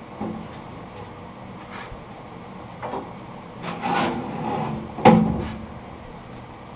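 Irregular knocks, scrapes and rubs of parts being handled at a workbench, with a heavier clunk about five seconds in.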